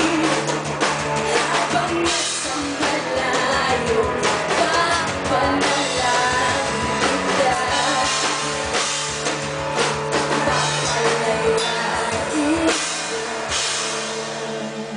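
Live pop-rock band playing a song: a woman sings lead into a microphone over a drum kit, electric guitar and bass guitar. The music gets somewhat quieter near the end.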